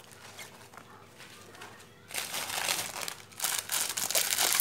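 Plastic packet of coarse salt crinkling loudly as it is handled, starting about two seconds in after a few faint ticks.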